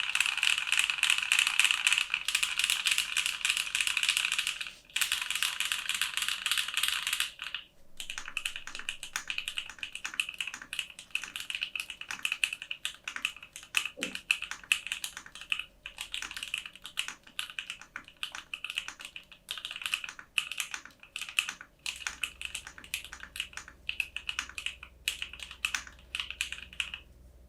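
Typing on a JamesDonkey RS2 gasket-mount mechanical keyboard with Gateron PRO Silver linear switches. A fast, dense run of keystrokes for about the first seven seconds gives way to lighter typing in short bursts with brief pauses.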